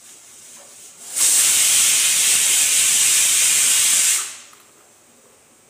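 A loud, steady hiss starts suddenly about a second in and cuts off about three seconds later.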